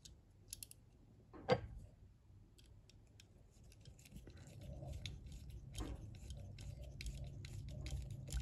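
Small screwdriver turning tiny screws into the base of a die-cast toy truck: faint, irregular ticking and clicking, with one sharper click about a second and a half in.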